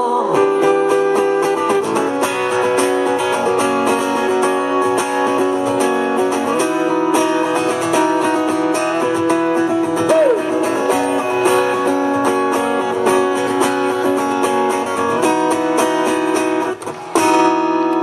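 Solo acoustic guitar strummed and picked in an instrumental passage of a song, played live, with a brief break in the playing near the end.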